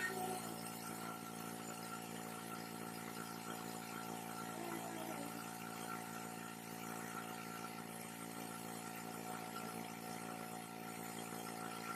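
Vacuum pump of an OCA screen laminator running with a steady hum.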